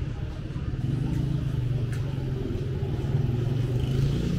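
Street traffic: a steady low engine drone from passing vehicles, swelling a little near the end, with one faint click about two seconds in.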